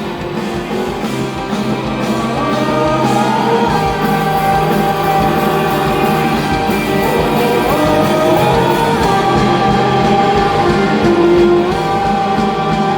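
Pop-rock song with electric guitar and drums. A melody of long held notes slides up between pitches, in a stretch without lyrics.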